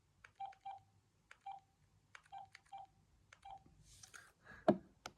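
Keys pressed on a VTech DECT 6.0 cordless phone handset, each press a click followed by a short key beep, about seven presses at uneven spacing. Near the end, a brief rustle and a heavier thump, then one more press and beep.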